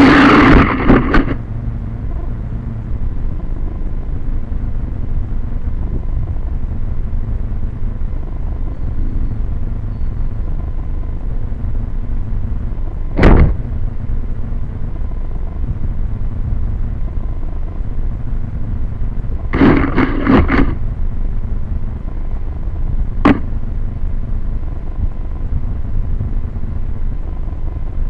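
A Syma X5C toy quadcopter's motor whine cuts off in the first second, leaving strong wind rumbling on its onboard microphone as it lies upside down. A sharp knock comes about halfway through, a quick run of knocks a little later and one more soon after: an Australian magpie biting a propeller guard and shaking the quadcopter.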